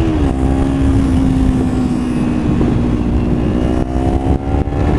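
Kawasaki Ninja 300 parallel-twin engine running through an Akrapovic slip-on exhaust with its noise-killer baffle removed, heard from the rider's seat while cruising. The engine note dips briefly just after the start, holds steady, and then climbs slowly toward the end, with wind rumble underneath.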